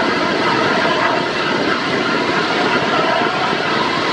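Airbus A319's twin jet engines running at taxi thrust: a steady, loud rush with a faint whine.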